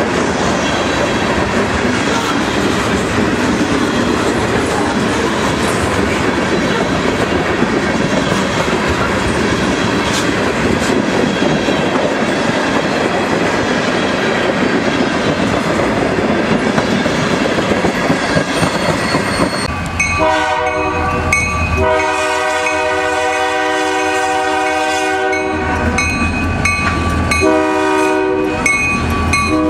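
Freight cars of a Huron & Eastern train rolling past close by, a steady rumble of wheels on rail. After about twenty seconds it gives way to a diesel locomotive's multi-note chime horn sounding a series of blasts, one of them long, with short gaps between.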